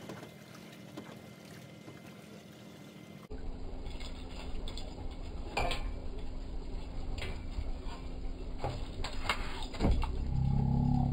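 Fishing reel cranking as a fish is reeled up and lifted from the water, with a steady low rumble of wind on the microphone, scattered clicks, and a loud knock near the end.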